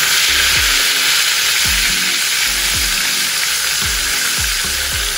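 Breaded small fish frying in shallow oil in a skillet: a steady, dense sizzle of bubbling oil, the fish already turning brown. A low, repeating music track plays underneath.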